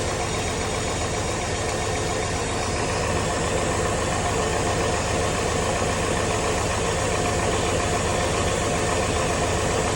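1996 Camaro SS's LT1 5.7-litre V8 idling steadily, with an even running hum and fast regular firing pulses.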